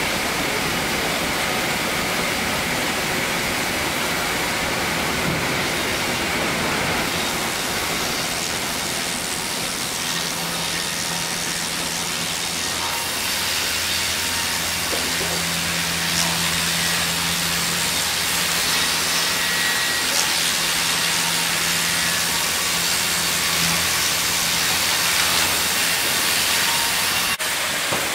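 Sawmill canter slabber running as a log feeds through it: a steady, noisy hiss throughout, with a low hum joining about ten seconds in and dropping away near the end.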